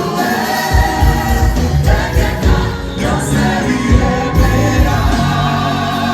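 Gospel choir singing in harmony over a live band. A deep bass and drum beat comes in under the voices just under a second in.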